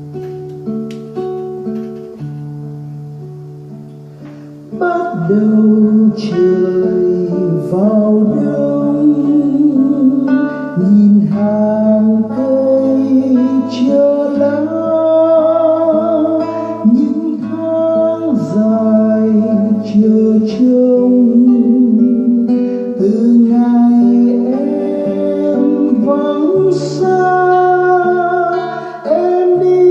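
Instrumental introduction of a ballad played on acoustic guitar, quiet at first. About five seconds in a louder melody line with vibrato comes in over the guitar and carries on.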